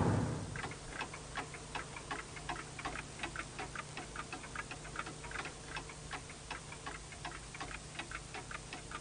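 Several clocks ticking together, their ticks out of step at about four to five a second, over a faint steady hum. A loud rushing noise dies away in the first half second.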